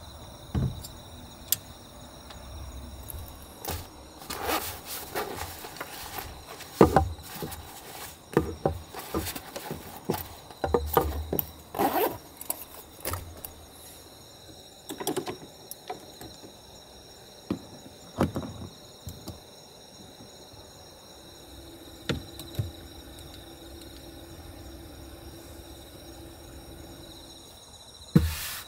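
Knocks and clicks of small metal cylinder lanterns and wooden boards being handled and set down on a wooden tabletop: a busy run of sharp knocks, the loudest about seven seconds in, then only a few taps. A steady high insect chirr runs underneath.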